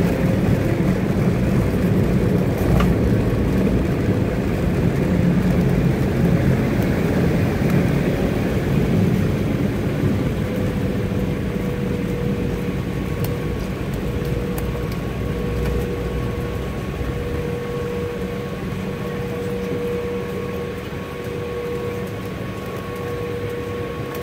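Airliner cabin noise during the landing rollout: a heavy rumble of engines and wheels on the runway that eases as the plane slows toward taxi speed. A steady whine comes through from about halfway on.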